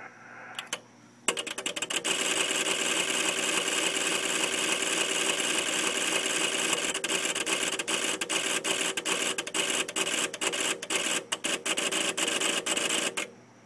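LDG AT-1000Pro automatic antenna tuner's relays chattering rapidly while it searches for a match, starting about a second in after a couple of single clicks and stopping abruptly near the end when the tuning cycle finishes.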